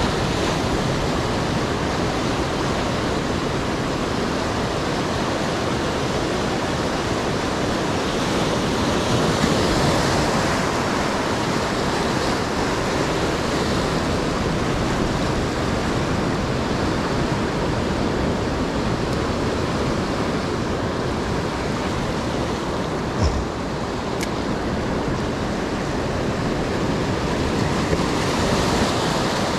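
Surf washing in over a rocky shore: a steady rush of breaking water that swells a little about a third of the way in and again near the end, with one brief knock about three-quarters of the way through.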